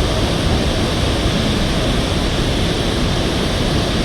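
Murchison Falls on the Nile: a loud, steady rush of falling water, even and unbroken, with much of its weight in the low end.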